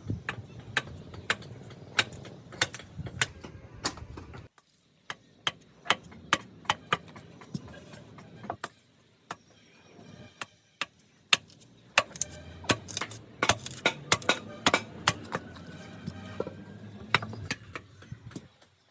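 Workshop knocking: a long run of sharp knocks and taps, two or three a second, uneven and thickest in the second half. A low machine hum runs under them for the first few seconds and again near the end.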